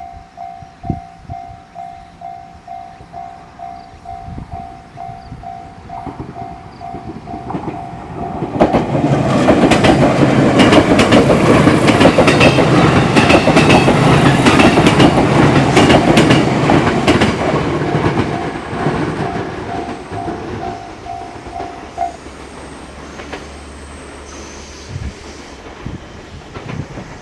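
Japanese level-crossing warning bell ringing in quick electronic dings, about two to three a second. About eight seconds in, a train passes loudly for some ten seconds, its wheels clattering over the rail joints. After the train the bell rings on again and stops about 22 seconds in.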